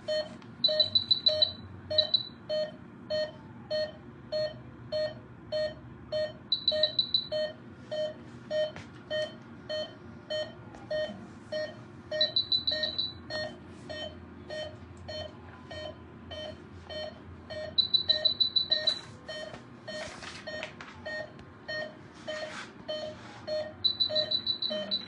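Anesthesia patient monitor beeping with each pulse of an anesthetized wolf, just under two beeps a second, with several short runs of rapid high-pitched beeps.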